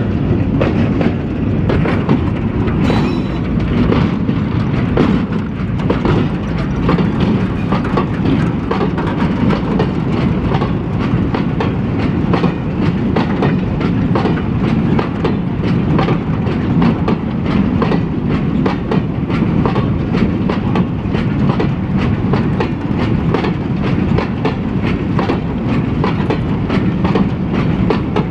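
Empty open-top freight wagons rolling slowly past, their steel wheels clicking and clanking continuously on the rails over a steady low rumble.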